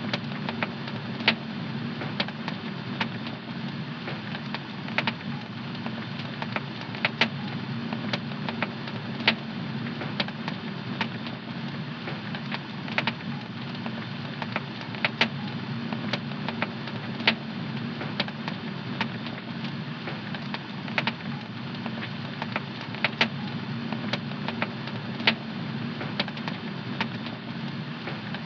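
Fire burning in a home fireplace, crackling with irregular sharp pops every second or so over a steady low rushing sound.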